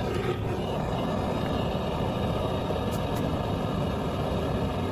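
Hose-fed gas torch burning under a steel pan of acid, a steady rushing flame noise.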